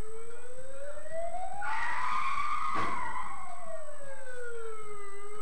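A wailing siren, its pitch rising slowly for about two and a half seconds, falling, then starting to rise again near the end. Around the middle comes a short burst of noise with a single knock.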